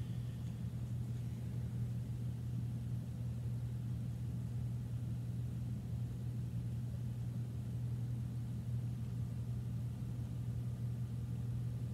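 A steady low hum from room machinery, even and unchanging, with no other sound standing out.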